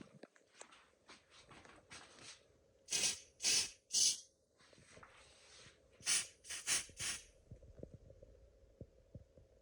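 Aerosol can of smoke-detector test spray hissing in short bursts: three about three seconds in, then four quicker ones about six seconds in. It is canned test smoke being sprayed at a smoke alarm to set off its smoke sensor.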